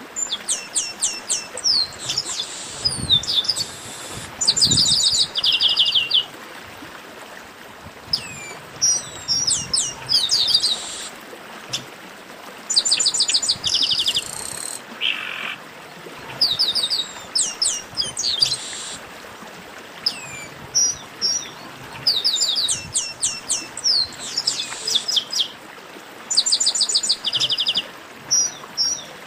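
Chestnut-capped blackbird (garibaldi) song: short bursts of fast, evenly repeated high descending notes, a burst every second or two, some of them overlapping.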